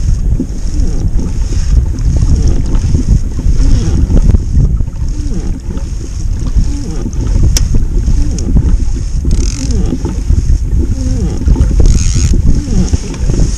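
Wind buffeting the microphone: a loud, continuous low rumble that rises and falls in gusts.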